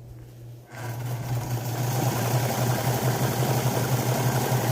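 Electric sewing machine starting up under a second in and then running steadily, stitching through a quilt.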